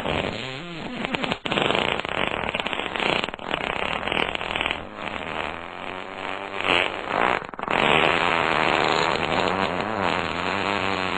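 Fart sound effects, one run into the next: long farts with a pitch that wobbles up and down, with short breaks about a second and a half in and again past seven seconds.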